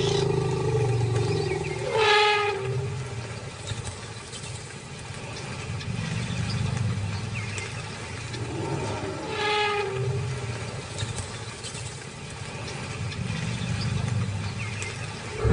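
African bull elephants trumpeting twice, about seven seconds apart, as they jostle over scarce water at a waterhole. The trumpets carry over a steady low rumble.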